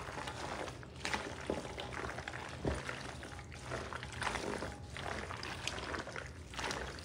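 Penne pasta in a creamy dressing being tossed by a gloved hand in a large stainless steel bowl: wet, squelching mixing that comes in several bouts of strokes.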